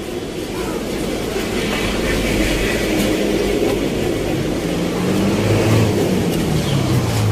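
Highway traffic: a steady rush of passing vehicles that grows louder, with a heavy vehicle's engine drone coming up near the end.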